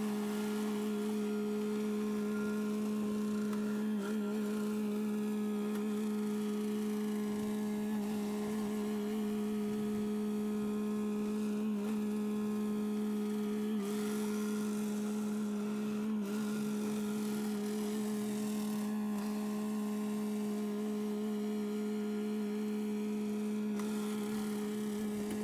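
A steady, unchanging hum: one low tone with a fainter tone an octave above it.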